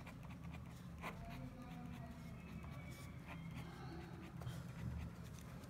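Pen scratching on paper in short strokes as a chemical structure diagram is drawn, faint.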